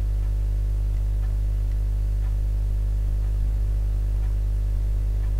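Steady electrical mains hum: a low, unchanging buzz with a stack of overtones.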